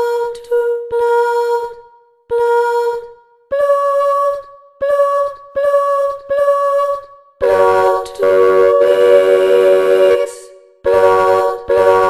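Realivox Blue sampled female voice in Kontakt singing short separate syllables, unaccompanied: a run of single notes on one pitch, then on a slightly higher pitch from about three and a half seconds in. From about seven and a half seconds in it sings chords of several notes at once, held longer.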